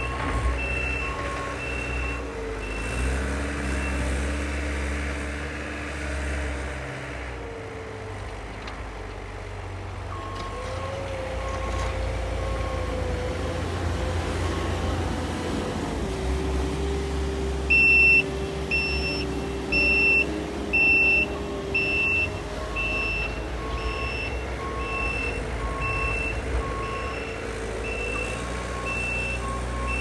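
Kubota SSV75 skid steer's diesel engine running under load, its pitch shifting as the machine drives back and forth, with its reversing alarm beeping on and off. The beeping is loudest a little past halfway.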